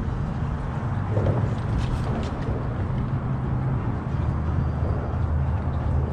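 Outboard boat motor running steadily, a low rumble, with a few light clicks about two seconds in.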